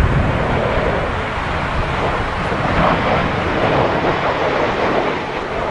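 Jet airliner engine noise mixed with strong wind buffeting the microphone. The low rumble of the wind gusts is heaviest at the start and eases after about a second, leaving a steady rushing noise.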